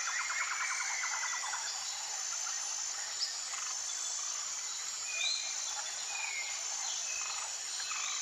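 Tropical rainforest ambience: a steady high insect drone, with a rapid pulsing call that fades out in the first second or two, and a few short bird whistles near the middle.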